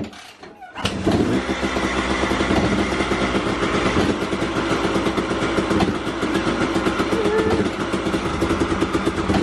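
Two-stroke dirt bike engine kick-started, catching about a second in and then running steadily at idle.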